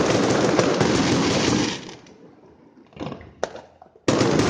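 Fireworks crackling: a dense burst of crackle that starts suddenly and dies away after about two seconds, one sharp pop about three and a half seconds in, then another dense crackling burst near the end.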